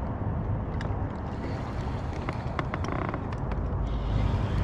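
Low steady rumble with scattered clicks and rubbing from a hand handling the camera, and a brief buzz about three seconds in.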